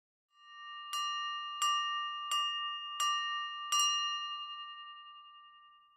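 A bell-like chime struck five times at an even pace, a little under a second apart, all on the same ringing pitch. The tone swells in just before the first strike and fades away slowly after the last.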